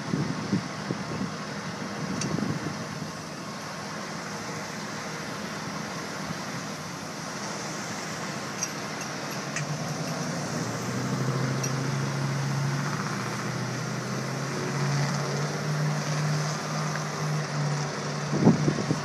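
Vehicle engine and road traffic noise, with a steady low engine hum that comes in about halfway through and holds, stepping up slightly in pitch. A few faint clinks of metal are heard along the way.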